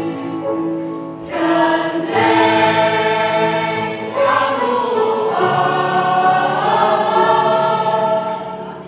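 A choir singing in long held notes, in several phrases; the last phrase fades away near the end.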